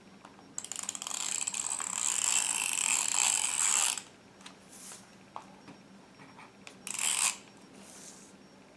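Adhesive tape being pulled out and run off its roll, a fast ratcheting for about three seconds starting just after the start, then a second, shorter pull about seven seconds in.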